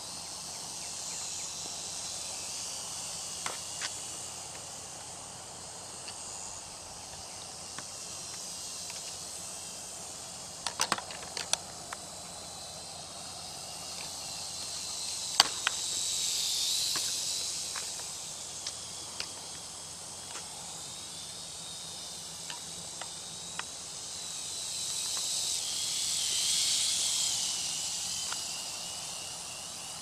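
Outdoor insects chirring: a steady high-pitched drone that swells twice, with a few faint clicks scattered through it.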